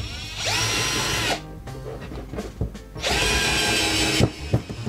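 IKEA FIXA cordless drill-driver, in first gear at torque setting 10, driving a screw into hardwood in two runs of about a second each, each whining up to speed and then holding steady. The second run ends in a few sharp clicks as the torque clutch slips at its setting and the screw goes no further.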